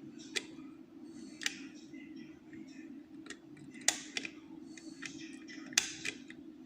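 Metal lever-lock picks and tension wire working inside a five-lever curtained lock: soft scraping with a handful of sharp clicks as the tools move against the levers and curtain. A steady low hum runs underneath.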